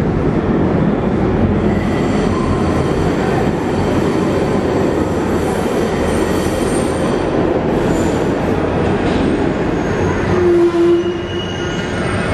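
Budapest Millennium Underground (M1) metro train running along the station platform: a loud, steady rumble of wheels on track, with a short whine about ten and a half seconds in.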